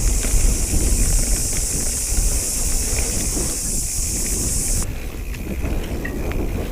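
Wind buffeting the microphone during a mountain bike ride, with a steady high hiss that cuts off suddenly about five seconds in.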